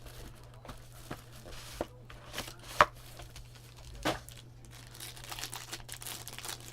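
A trading-card pack's foil wrapper being torn open and crinkled, with cards being handled. Irregular crackling, with two sharp clicks about three and four seconds in.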